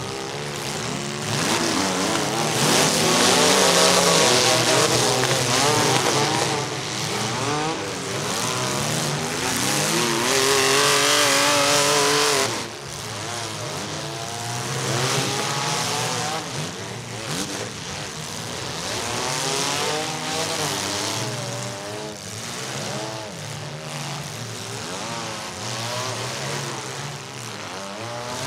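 Several demolition derby compact cars' engines revving and running at once, their pitches rising and falling over one another as they drive and ram around the arena. Louder for the first twelve seconds or so, then somewhat quieter.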